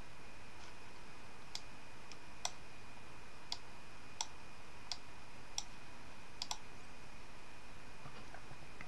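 Computer mouse clicking about seven times, roughly once every 0.7 s, over a faint steady hiss with a thin high whine.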